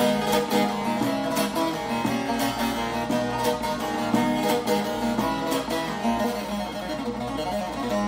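Instrumental background music led by plucked strings, cutting in suddenly at the start with a steady beat of plucked notes.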